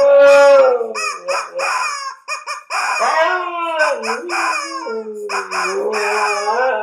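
A rubber chicken toy squeezed again and again, giving loud squawks, while a husky howls along in long howls that waver in pitch.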